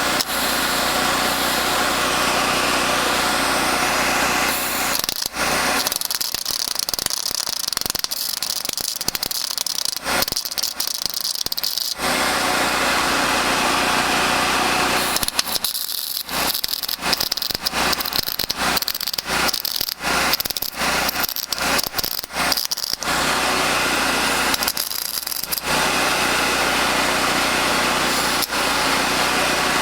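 MIG welder arc crackling steadily as a bead is laid, broken by a few short stops and a stretch of quick stop-start bursts in the middle.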